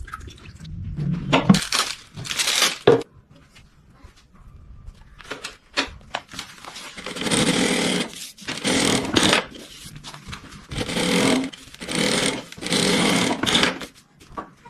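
Sewing machine running in five short bursts, a whirring, clattering mechanical noise that starts and stops repeatedly, after a few knocks and clicks of the machine being handled.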